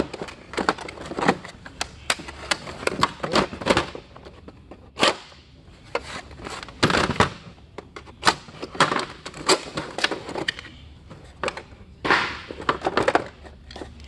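Steel ratcheting combination wrenches clacking and rattling in their plastic tray and packaging as the new set is handled, with short crackling rustles of the plastic and box, in irregular bursts.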